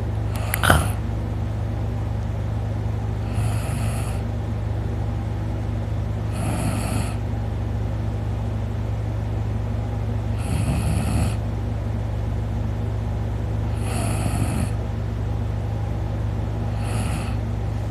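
A man snoring in his sleep: a snore about every three and a half seconds, over a steady low hum. A short sharp sound comes less than a second in.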